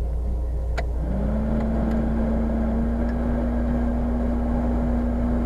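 Off-road vehicle's engine idling steadily as it waits at the edge of a ford. Just under a second in there is a sharp click, and right after it a whine starts, rises briefly in pitch, then holds one steady tone over the idle.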